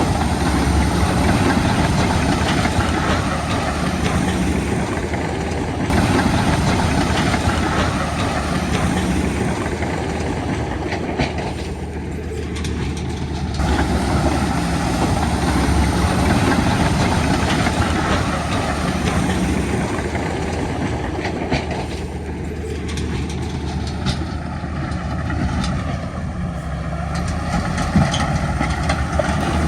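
Heavy diesel earthmoving machinery running steadily, engine drone with a metallic clatter; the level dips briefly about twelve seconds in and again near twenty-three seconds.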